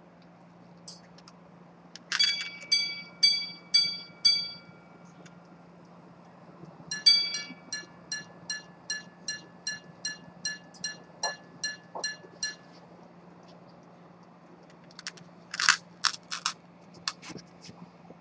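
Antique minute-repeater pocket watch striking the time on its gongs: five single strikes on one tone, then after a short pause a faster run of strikes alternating between two tones. A few sharp clicks from handling the watch case follow near the end.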